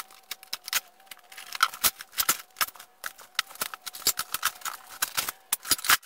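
Utility knife cutting open a strapped cardboard box: a fast, uneven run of clicks and scrapes as the blade slices through the packing tape and cardboard.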